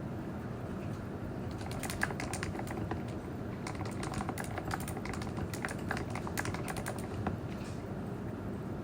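Typing on a keyboard: a run of quick keystroke clicks starting about a second and a half in and stopping about seven seconds in, over a steady background hiss.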